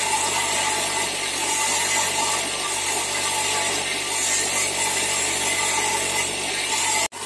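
Motor-driven grinding wheel running steadily while a wet agate stone is held against it: a constant motor hum under the rasp of stone on the abrasive wheel. The sound cuts out abruptly for a moment near the end.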